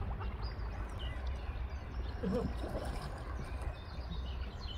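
Water sloshing and splashing around a bark canoe as one man paddles and another wades alongside pushing it, over a steady low rumble, with small high chirps from birds and a brief voice-like sound about two seconds in.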